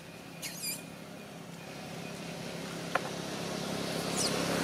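A low steady engine hum of a vehicle grows gradually louder. Over it come a few short high-pitched squeaks from a baby long-tailed macaque about half a second in, and another brief squeak near the end. A single sharp click sounds about three seconds in.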